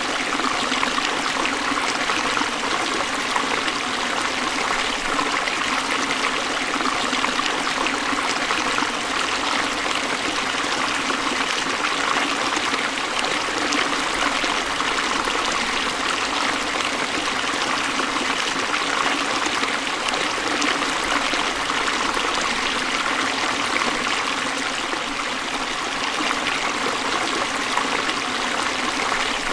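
Forest stream running over rocks: a steady rush and trickle of flowing water.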